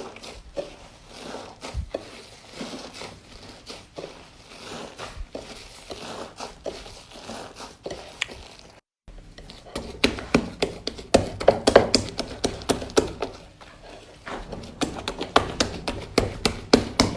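Slime being squeezed and pressed by hand, a steady stream of small sticky clicks and pops. About nine seconds in it cuts briefly to silence, then the pops come louder and denser.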